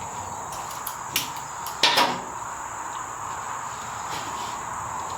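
A few sharp knocks and a louder clunk about two seconds in as a rider swings onto a motorcycle and settles on its newly fitted seat, over a steady high-pitched background whine.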